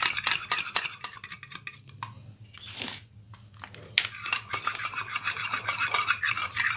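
Fork beating a separated egg yolk in a small bowl: rapid tapping and scraping of the fork against the bowl, with a pause of about two seconds in the middle before the beating starts again.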